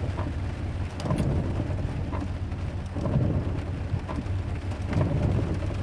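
Low rumbling background noise inside a parked car at the roadside, swelling and easing every second or so.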